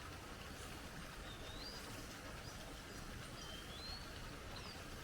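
Steady faint outdoor hiss with two short whistled bird calls, one about a second and a half in and another about three and a half seconds in.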